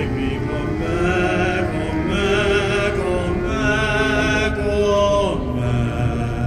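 A woman singing long held notes with a wavering vibrato, backed by a navy brass band with a steady low bass. A held note slides down and stops about five seconds in.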